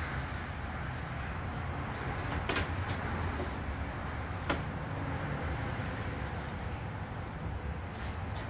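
Steady low rumble and hiss of background noise, with a few light taps and clicks as a metal carpenter's square is handled and set on the plywood.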